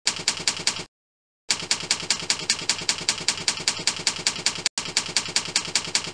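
Typewriter keystroke sound effect: rapid, evenly spaced clacks, about eight a second, in three runs, with a gap of about half a second about a second in and a brief break near the end, as the title text types on.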